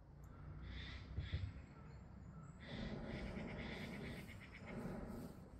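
Faint rushing noise of a hot-air balloon's propane burner firing, growing stronger from a little under three seconds in.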